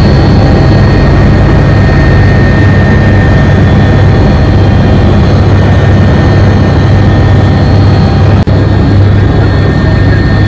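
Helicopter cabin noise: a loud, steady drone of the turbine engines and rotor, with a constant high whine above it. There is one brief dip about eight seconds in.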